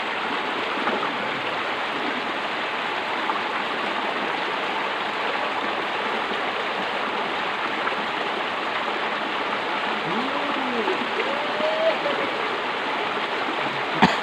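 Fast-flowing water rushing steadily along a narrow concrete drainage ditch. Faint voices come in about ten seconds in, and there is one sharp click near the end.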